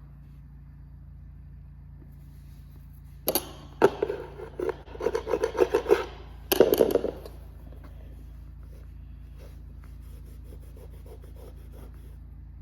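Rubbing and scraping on a hard floor in quick strokes, loud for about four seconds in the middle, over a faint steady low hum.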